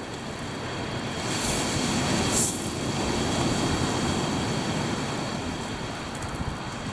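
Sea surf on a shingle beach: a steady rush that swells as a wave comes in about two seconds in, with a brief hiss of water over the pebbles.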